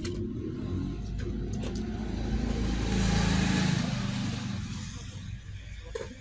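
A motor vehicle passing by: engine rumble and road hiss swell to a peak about three seconds in and then fade away. A few light clicks come at the start and near the end.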